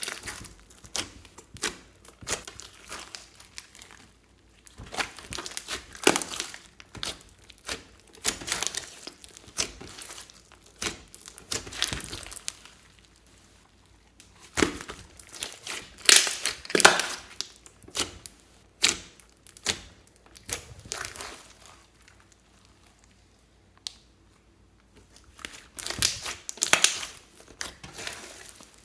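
Fluffy slime being squeezed and stretched by hand, crackling in irregular bursts with short pauses between them.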